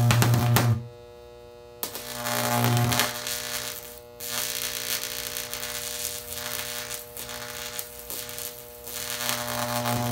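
High-voltage electric arc, flaming orange-yellow with sodium, buzzing with a deep mains hum and crackling. It goes out just before a second in, strikes again about two seconds in, runs weaker through the middle and grows louder again near the end.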